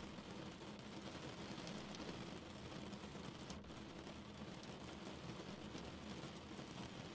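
Steady rain falling: an even hiss of many small drops pattering, with a momentary dip about halfway through.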